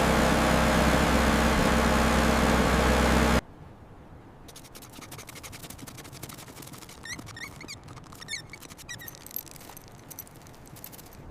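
Small generator engine running steadily, then cutting off abruptly about three seconds in. Faint scraping and clicking follow, with a few short high chirps.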